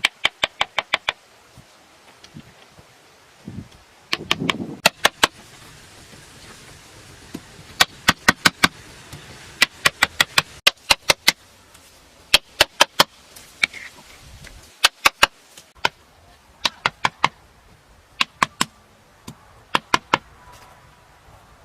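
Quick runs of sharp taps or knocks, five to eight at a time, repeating every few seconds, typical of a hard tool tapping on stone or brick during building work.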